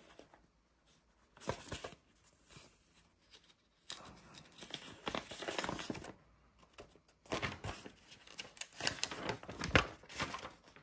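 Paper sheets rustling and crinkling as they are handled and leafed through, in several short bursts with quiet gaps between.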